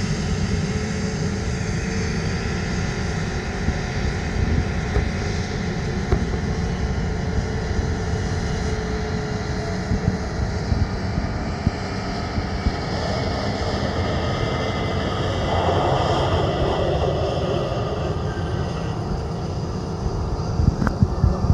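Boeing 787 Dreamliner on final approach: steady jet engine noise with faint steady whining tones over it.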